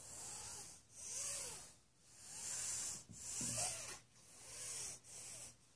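A run of hissy, rushing noises close to the phone's microphone, about one a second, rising and falling.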